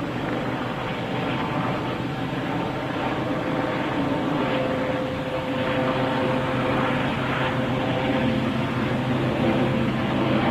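Eurocopter AS365 N3 Dauphin helicopter in flight: a steady drone and whine from its twin turbines, main rotor and Fenestron tail rotor, growing gradually louder as it approaches.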